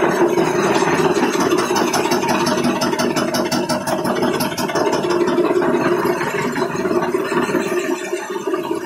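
Electric marble floor grinding machine running with a steady hum as its rotating head grinds the floor.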